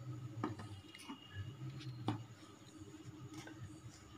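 Faint handling sounds: a few light knocks and clicks as plastic cups are picked up and set down on a wooden table, the clearest about halfway through, over a low room hum.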